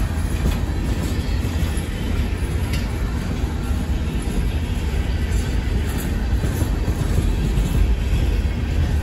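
Empty open-top coal hopper cars rolling past: a steady rumble of steel wheels on rail, with a few faint clicks.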